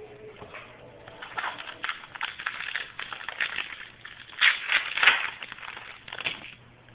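Crackling, crinkling rustle of trading cards and their foil pack wrapper being handled, in quick irregular crackles that are loudest a little past the middle.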